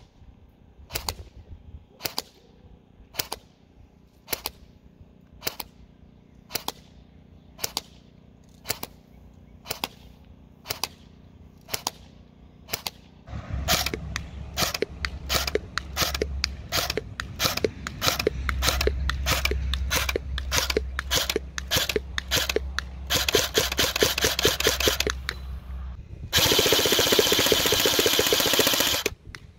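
CYMA M14 airsoft electric rifle firing. For the first half it fires single semi-auto shots, one or two a second; after that the shots come quicker. Near the end come two full-auto bursts of about two and three seconds, the gun cycling at around 14 rounds a second.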